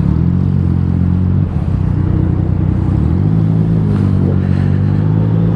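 Yamaha XSR900's inline-three engine running at low speed as the bike rolls along, its pitch stepping up about three seconds in.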